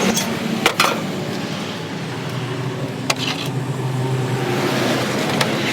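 A motor vehicle engine running steadily, with two sharp knocks close together a little under a second in and another about three seconds in.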